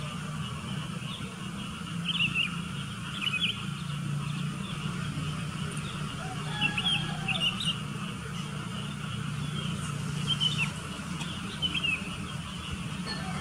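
Sooty-headed bulbuls calling: short, quick chirping notes in small clusters every second or two, over a steady low hum.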